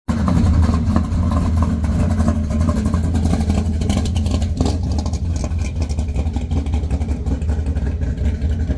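A car engine running steadily, its sound strongest in the first second and then even.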